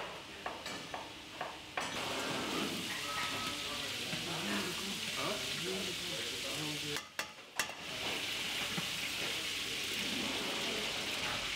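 A knife chopping on a cutting board, a few quick taps in the first couple of seconds, then the steady sizzle of food frying in a pan. The sizzle drops out briefly a little past the middle and returns.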